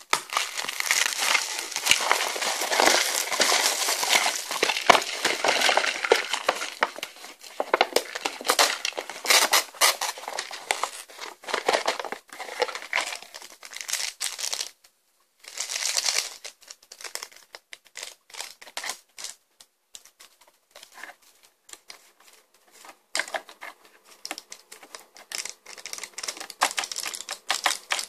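Thin plastic shrink-wrap crinkling and tearing as it is peeled off a cup noodle bowl, dense and steady for about the first half. After a short pause, sparser rustling and crinkling as the paper lid and a foil seasoning packet are handled.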